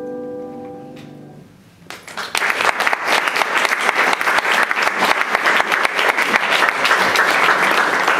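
The final chord of a four-hand piece on a Steinway grand piano dies away, then an audience applauds, the clapping starting about two seconds in and carrying on steadily.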